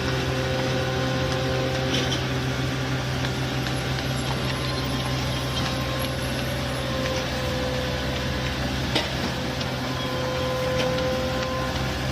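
Heavy machinery running steadily: a constant engine drone with a low hum and a few steady whining tones over it, broken by occasional clicks and one sharper knock about nine seconds in.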